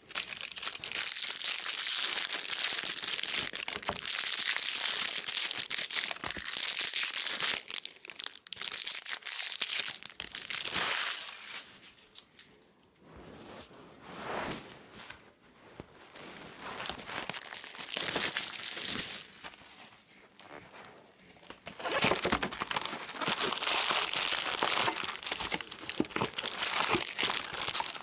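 Foil wrappers of baseball card packs being torn open and crinkled. The rustling comes in irregular stretches and goes quieter for several seconds in the middle.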